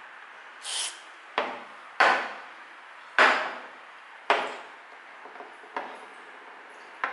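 A short blow of air about half a second in. Then about six sharp knocks at irregular spacing, each with a short decaying ring, as metal faucet parts are handled against a hard work surface while the clogged tap cartridge is cleaned.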